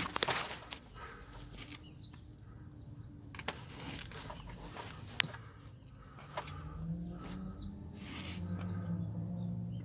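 A small bird chirping repeatedly, a short falling note about once a second. There are a few light clicks, and a low hum rises in the second half.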